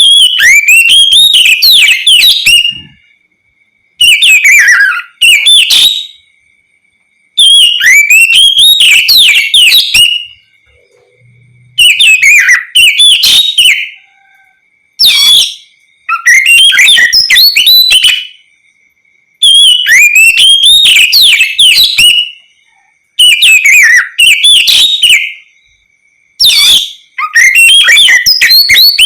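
Oriental magpie-robin (kacer) singing its loud, open 'ngeplong' song: repeated phrases of rapid, sliding whistled notes, each a second or two long with short pauses between. A faint steady high tone carries on through the pauses.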